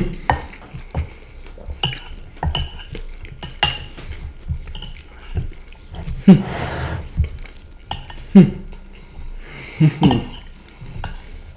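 Metal forks and a knife scraping and clinking against ceramic plates in a stream of sharp clicks, with close-miked chewing of rice and crunchy shoestring potato sticks, loudest about six to seven seconds in.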